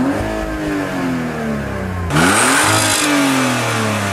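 Car engine revved twice with the car in Park: each time the pitch climbs quickly, then falls back slowly as the revs drop. The second rev, about two seconds in, is the louder.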